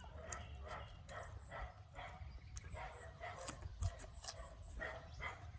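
A dog barking over and over in a steady run of short barks, about two or three a second.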